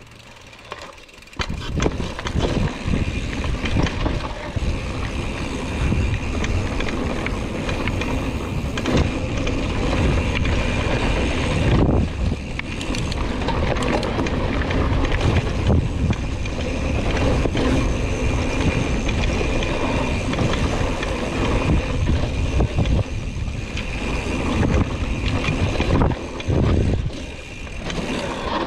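Hardtail mountain bike ridden over a rough dirt trail: tyre rumble and a steady clatter of knocks and rattles from the bike, starting about a second in after a quieter moment and easing off briefly near the end.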